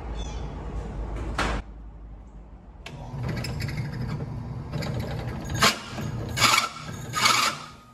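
Benchtop drill press running, its motor humming steadily, while the bit drills a steel plate. Near the end there are three short, harsh grinding bursts as the bit bites into the steel.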